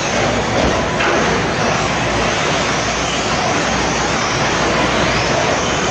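Several 1/8-scale electric RC truggies racing on a dirt track: a steady, loud wash of motor and tyre noise.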